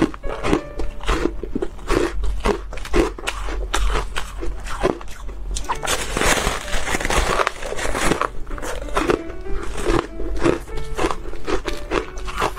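Teeth biting and crunching through a slab of frozen ice in a run of sharp cracks and crunches, densest about six seconds in, with background music underneath.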